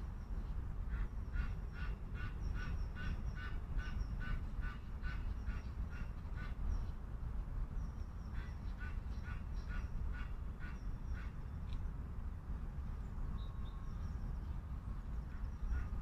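Waterfowl calling in two quick runs of short, nasal calls, about three a second, the first run lasting several seconds and the second shorter, over a steady low rumble.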